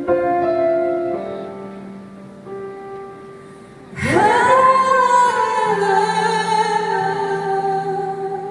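Live ballad: held accompaniment chords fade away, then about four seconds in a woman's voice swoops up into a long, loud held note with vibrato. The note slowly falls in pitch over the quiet backing.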